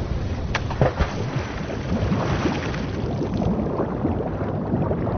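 Sea water sloshing and gurgling, with a sharp splash about half a second in. Later the water sound turns dull and muffled, as if heard from under the surface.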